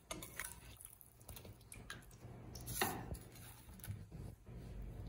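Metal spoon scraping and clinking in a metal cooking pot while scooping out cooked chicken in gravy, with faint wet squelching; one sharper clink a little under three seconds in.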